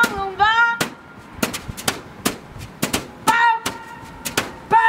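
A rhythm of sharp, dry percussive hits, coming every half second or so, with a few short held melodic notes between them, as part of a song.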